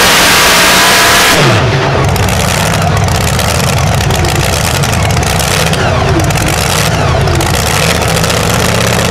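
Supercharged V8 of a two-wheel-drive pulling truck coming off full throttle at the end of its pull. About a second and a half in the roar cuts off and the pitch drops, and the engine settles into a loud, lumpy idle.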